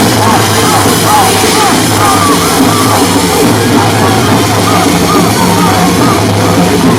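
Loud music with drums playing steadily, with voices shouting over it.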